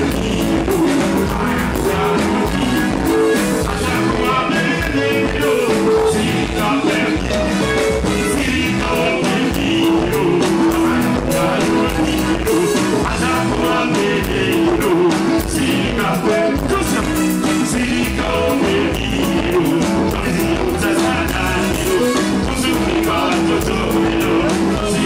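Live band music with a steady drum beat and a man singing into a microphone, played loud through the stage sound system.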